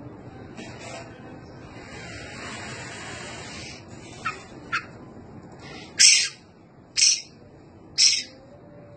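Small bird calling: two short chirps, then three loud calls about a second apart.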